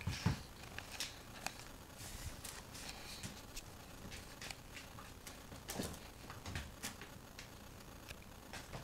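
Kittens scuffling over a pair of sandals on a tile floor: irregular soft thumps, taps and scrapes as the sandals are knocked about, with the loudest thump just after the start and another cluster about six seconds in.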